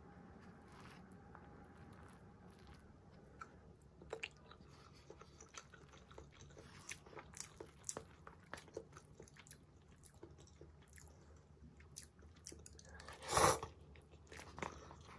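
Wooden chopsticks stirring and lifting stir-fried instant noodles in a paper bowl: soft scattered clicks and taps, with one louder, noisier burst about thirteen seconds in.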